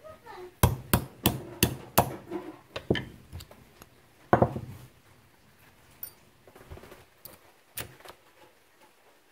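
A hammer tapping a pin punch to drive the hammer pivot pin out of a Hatfield SS12 single-shot shotgun receiver. There are about seven quick taps in the first three seconds, one harder blow in the middle, and a few lighter taps near the end.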